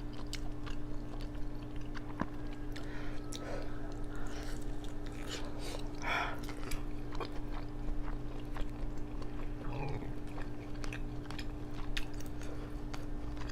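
Close-miked chewing and biting of crunchy Hot Cheeto-crusted food, with many small crisp crunches throughout, over a faint steady hum.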